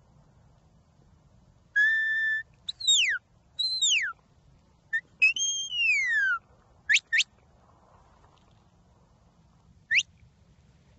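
A shepherd whistling commands to a herding dog: first a held steady note, then several long falling whistles, two quick rising whistles about seven seconds in, and one short rising whistle near the end.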